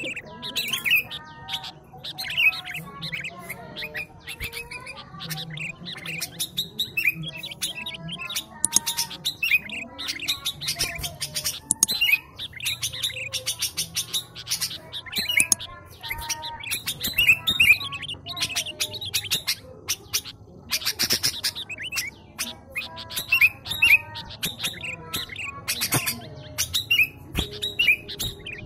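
Sooty-headed bulbul (kutilang) singing continuously and vigorously: a dense run of short chirping, whistled notes, with stretches of rapid clicking rattles.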